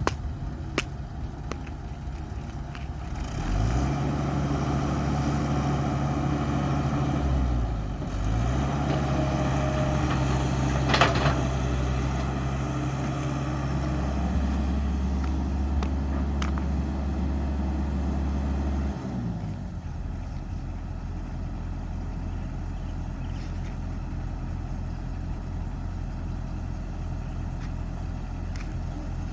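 Heavy construction machine's diesel engine running: it revs up a few seconds in, dips briefly and comes back, then drops back to a steady idle about two-thirds of the way through. There is one sharp click with a short high squeal near the middle.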